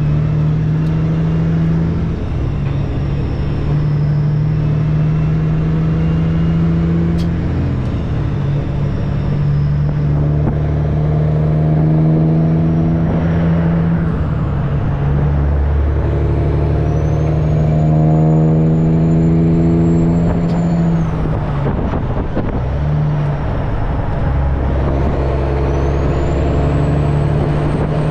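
Semi-truck's diesel engine running steadily while driving, heard from inside the cab. The low engine note drops out briefly a few times, and a faint high whistle rises and falls near the end.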